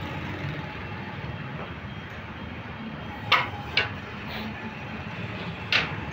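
Three sharp metal clinks, about half a second and then two seconds apart, as a steel hand tool strikes into a sand mould to break out freshly poured copper castings. A steady low workshop rumble runs underneath.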